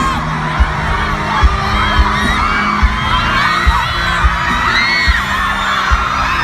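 A crowd screaming, many high cries overlapping, over music with a steady low beat a little more than once a second.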